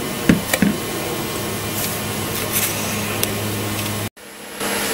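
A steady low machine hum over a background hiss, with a few faint clicks. It drops out for a moment near the end.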